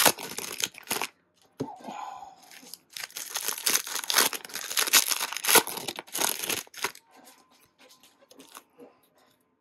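The foil wrapper of a 2024 Bowman Baseball blaster pack being torn open and crinkled, in several spells of tearing and rustling. The sound drops to faint handling noise after about seven seconds.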